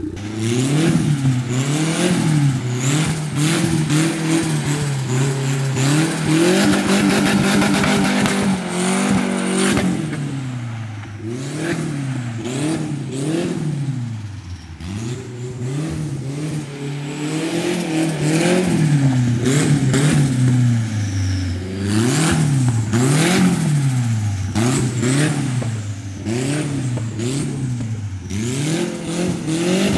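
Turbocharged Nissan 240SX's KA24DE inline-four engine being revved up and down over and over as the car drifts, first passing close and then heard across the lot. The revs are held near the top for a few seconds about a quarter of the way in, with a rapid crackle of exhaust pops.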